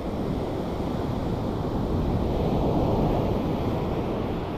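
Sea surf rushing in, one swell of water noise that builds to a peak about halfway through and then eases off.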